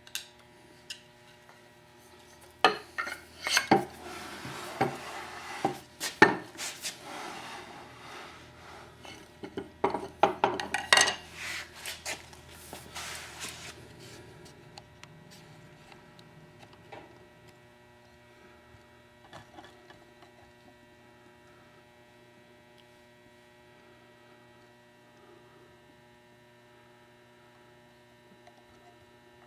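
Metal tools and hardware clinking and clattering as they are picked up and handled, busiest for about ten seconds early on and then thinning to occasional faint clicks, over a steady hum.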